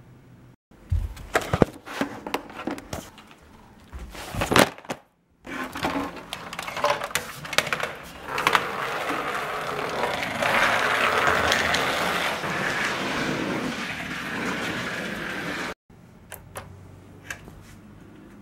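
Handling noise of a GameCube power brick and its cables being picked up and moved about: irregular knocks and clicks, then a long stretch of rustling and scraping. It comes in several short clips split by abrupt cuts.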